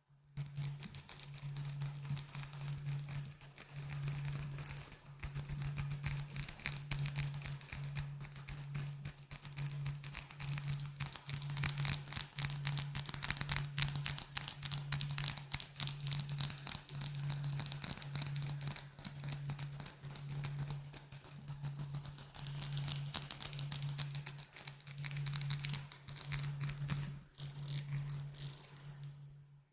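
Fingers or nails tapping rapidly on glass bottles: a dense, fast patter of small clicks with a bright ring, over a low, evenly pulsing hum.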